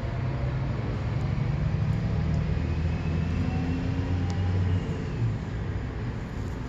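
Constructa K7 Typ 81 washing machine running, a steady low mechanical hum with shifting low tones that change about five seconds in.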